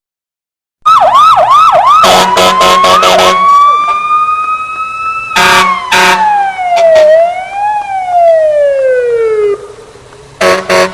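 Electronic police siren: a few quick yelps, then a wail that climbs slowly and falls away in pitch, with a brief rise in the middle of the fall. Sharp clicks sound several times along the way, and a short burst of sound comes near the end.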